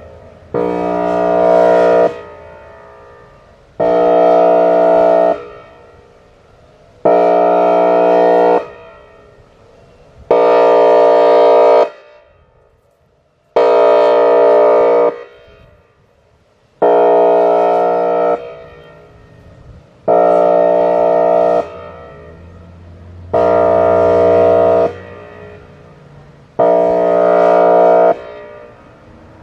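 Whelen Vortex R-4 outdoor warning siren sounding its airhorn signal: nine steady, even-pitched horn blasts, each about a second and a half long and repeating about every three seconds, each one tailing off in the gap before the next.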